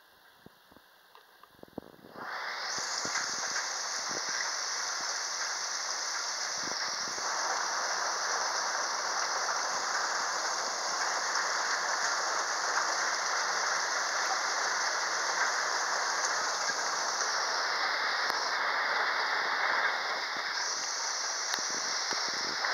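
Heavy thunderstorm rain pouring steadily. It comes in suddenly about two seconds in, after a few faint clicks.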